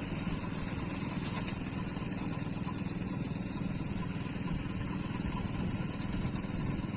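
Engine of a rice harvesting machine running steadily at an even speed, with a fast, even low chugging.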